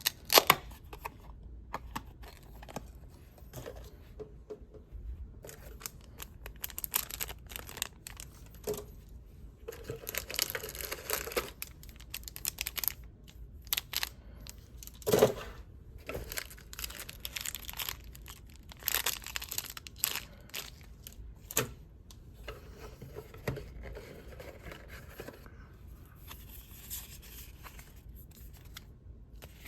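Pokémon trading-card packaging being torn open and crinkled: repeated bursts of ripping and rustling plastic wrap and foil, with scattered sharp clicks and knocks of handling.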